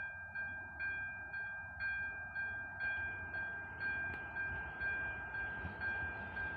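Railway level-crossing warning bell ringing steadily, about twice a second. About halfway through, the rumble of an approaching train starts to grow beneath it.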